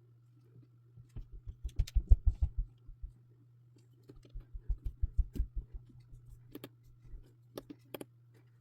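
Rapid runs of light taps and clicks from handling jumper wires and pressing them into a solderless breadboard, in two flurries with a few sharper single clicks near the end. A faint steady low hum runs underneath.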